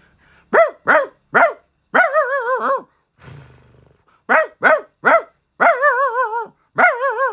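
A person imitating a medium-sized house dog with the voice: three quick barks, then a long wavering whine. The pattern repeats, and a second long wavering call ends it.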